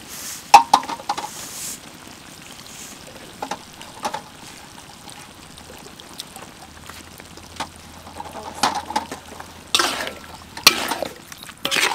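Metal spoon clinking and scraping against a metal wok as canned sardines in tomato sauce are poured out and stirred into sliced onions. Scattered clinks, with a loud knock about half a second in and the busiest stirring near the end.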